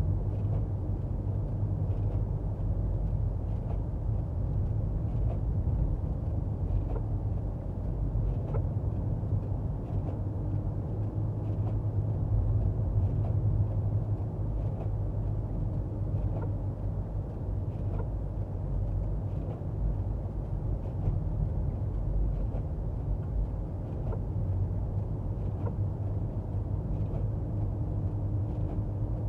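Steady low rumble of a car on the move, heard from inside, with faint light ticks about once a second.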